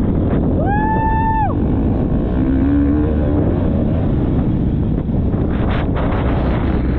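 Motocross bike engine running under heavy wind buffeting on a helmet-mounted camera microphone. About a second in, a short, steady high-pitched tone sounds for under a second.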